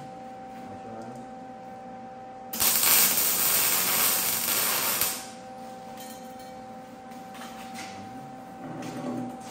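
MIG welder tack-welding a steel frame piece: the arc crackles for about two and a half seconds, starting about two and a half seconds in, then stops. A faint steady hum lies underneath.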